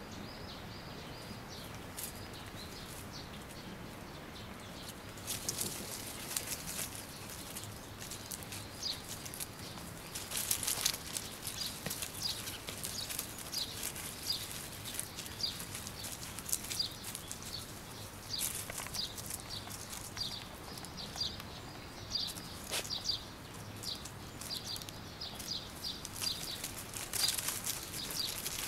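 Shiba Inu puppies and an adult dog scuffling and rustling over gravel and dry leaves, in short bursts, while a bird chirps over and over in short high notes.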